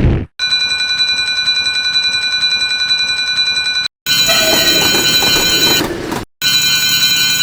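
Electronic railroad crossing warning bells ringing in a rapid repeating pattern. The bell sound changes abruptly twice, about four and six seconds in, with a short break each time. A brief loud noise burst comes right at the start.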